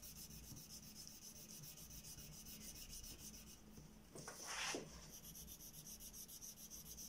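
Coloured pencil shading back and forth on a workbook page: faint, rapid, even scratchy strokes, several a second. A short pause comes just before one brief louder swish about four seconds in.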